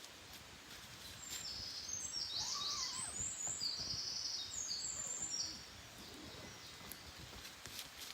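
A wild songbird singing a high, fast-warbled phrase from about a second and a half in until about five and a half seconds, over quiet outdoor background noise.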